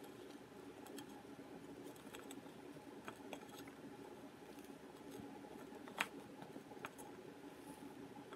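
Faint handling sounds of a ribbon being tied around a glass bottle: soft rustles and light clicks of fingers and ribbon against the glass, with one sharper tick about six seconds in, over a low steady room hum.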